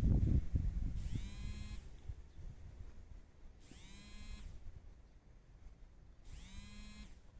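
A pitched whine that rises at its onset and then holds for just under a second, repeated three times at even spacing of about two and a half seconds. A low rumble is loudest at the start and fades over the first couple of seconds.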